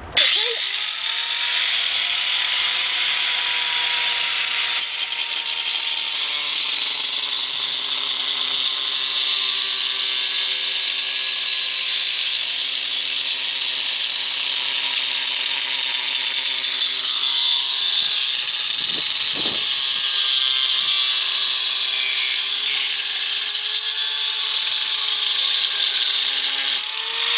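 Angle grinder with a tile blade running at full speed and cutting through a bathroom tile: a loud, steady high whine with a harsh grinding hiss from the blade biting the tile.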